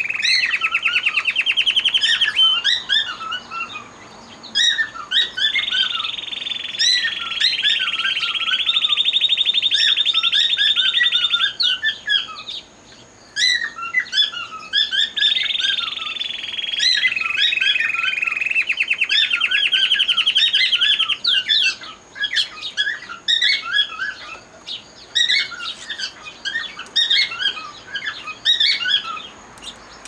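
Canaries singing: three long rolling trills of a few seconds each in the first two-thirds, with many short chirps and whistles around them, then scattered chirps near the end.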